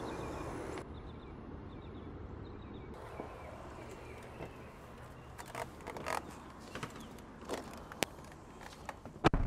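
A few faint knocks and clicks from a van's driver door and a man climbing into the seat, over a low steady background hum.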